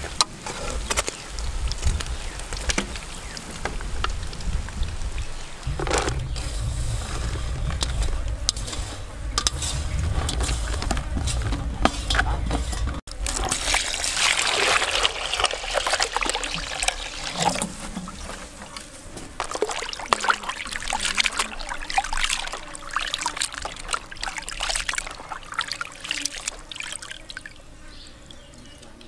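Shrimp fritters sizzling and crackling in hot oil over a steady low rumble. About halfway through it cuts to water pouring hard into a plastic basin of small fresh shrimp, then easing into splashing, trickling and dripping as hands lift and wash the shrimp.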